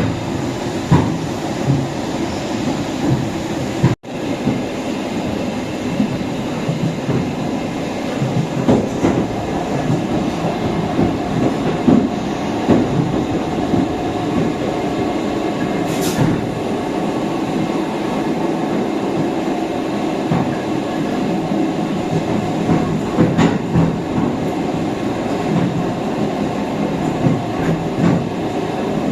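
Suburban electric train running, heard from inside the carriage: a steady rumble with the clack of the wheels over the rail joints. The sound cuts out for a moment about four seconds in.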